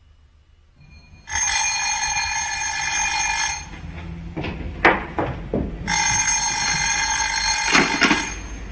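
Bell of a black rotary-dial desk telephone ringing twice, each ring about two seconds long with a pause of about two seconds between them, the first starting a little over a second in.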